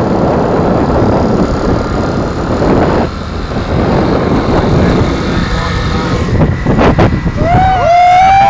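Moving vehicle on a hill road: steady engine and road rumble with wind on the microphone. Near the end a loud, wavering pitched tone cuts in over it.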